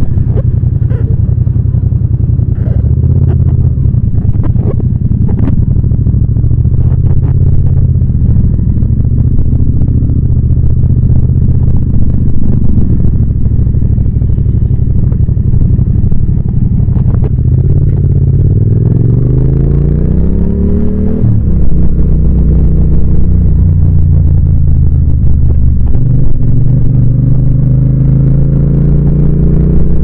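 Yamaha MT-07's 689 cc parallel-twin engine running under way at low revs, then climbing in pitch as it is revved through a gear about two-thirds in, dropping sharply at a gear change, and climbing again near the end. A few light ticks sound in the first seconds.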